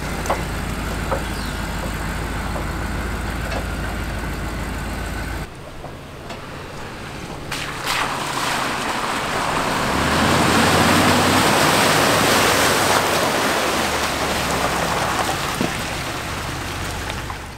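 Ford F250 Super Duty pickup's engine idling with a steady low hum. After a cut, the truck is driving on a wet dirt track, its engine and tyres growing louder as it comes through a muddy puddle and past, loudest about halfway through, then easing off.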